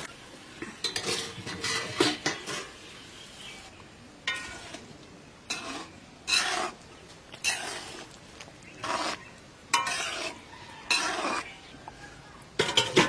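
A metal ladle scraping and stirring around a metal wok of fish curry, in uneven strokes roughly once a second. Near the end come a few sharper metal clanks as the wok's lid is handled.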